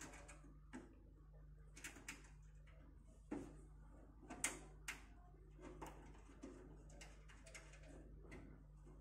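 Faint, scattered clicks and knocks of hands handling a desktop PC cabinet and fitting the two screws of its side cover, with sharper knocks about three and a half and four and a half seconds in. A faint steady hum runs underneath.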